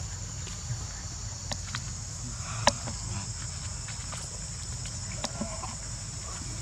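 Steady, high-pitched insect chorus, with one sharp click about two and a half seconds in and a few faint ticks and rustles.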